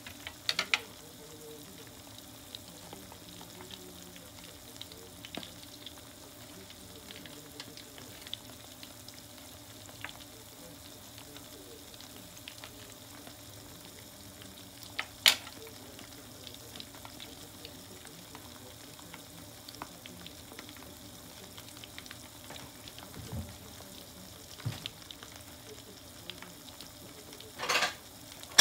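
Karaage deep-frying in oil in an aluminium mess tin: a steady sizzle with scattered small crackles and pops. A single sharp click comes about fifteen seconds in, and a few more clicks come near the end.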